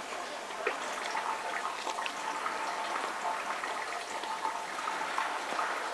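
Steady rushing background noise with a faint on-and-off tone and a few small clicks.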